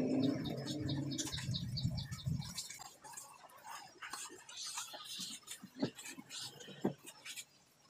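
A motor hums steadily and stops about two and a half seconds in. Then comes the faint rubbing of a cloth wiping a scooter's plastic body panels, with a few light knocks near the end.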